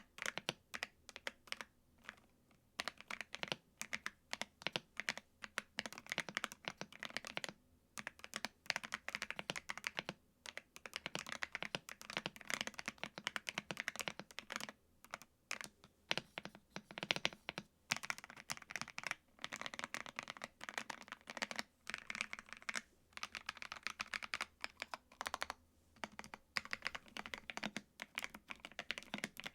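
Steady typing on a thocky mechanical keyboard with PBT keycaps: dense runs of keystrokes broken by brief pauses every few seconds.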